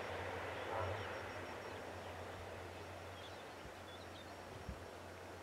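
Air Tractor 402B crop duster's Pratt & Whitney PT6A turboprop running as the plane flies away at low level, its sound slowly fading to a distant rumble.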